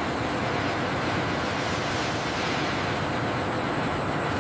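Steady rushing machinery noise of a large industrial assembly hall, even and unbroken, with a faint high-pitched whine.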